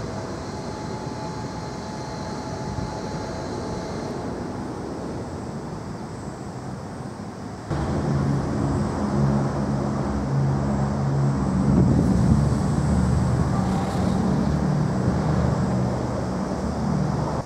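Outdoor background noise with some wind. About eight seconds in it steps up and a steady low engine-like drone takes over.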